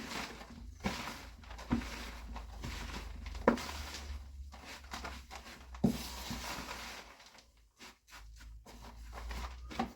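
Damp hardwood sawdust and bran being mixed by hand, a rustling, scraping noise with a few sharp knocks, growing quieter near the end.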